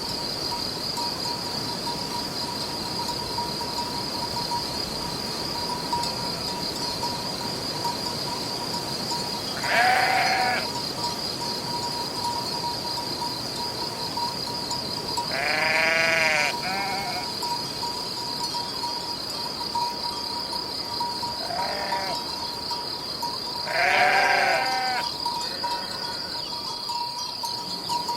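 Sheep bleating, one call at a time, five or six times, over a steady high-pitched trill.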